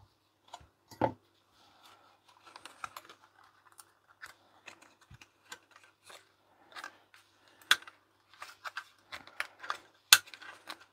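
Irregular small clicks, taps and light scraping as the thin metal shielding is pried off and handled around the board of an opened Acer laptop charger. Sharper clicks come about a second in, near eight seconds and near the end.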